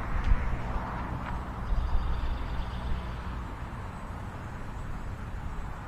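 Wind buffeting the microphone in gusts, with the faint high whine of the small UMX Raiden RC plane's motor.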